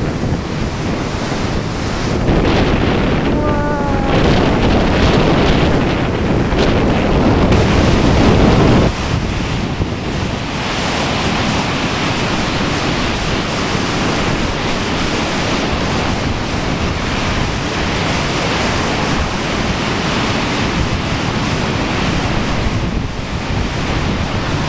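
Storm-driven lake waves crashing and surging onto a shallow beach, with strong wind buffeting the microphone. A heavier low rumble drops off abruptly about nine seconds in.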